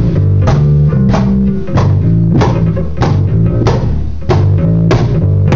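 Band playing an instrumental passage without vocals: drum kit keeping a steady beat, with a hit about every two-thirds of a second, under bass guitar and electric guitar.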